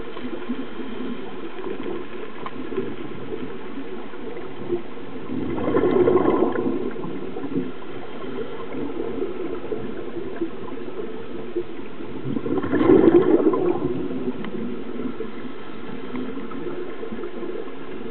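Scuba regulator exhaust bubbles heard underwater: two long bubbling exhalations, one about six seconds in and one about thirteen seconds in, over a steady low underwater hum.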